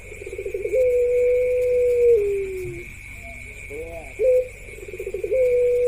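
A puter pelung dove cooing: a quick stutter of short notes, then one long held note that steps down and slides lower, with the next coo starting about four seconds in. A steady high whine runs underneath.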